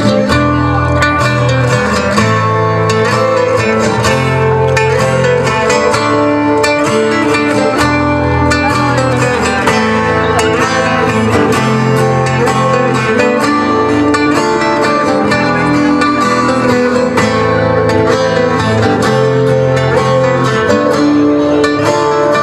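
Loud recorded pop music with guitar, playing an instrumental stretch with no singing.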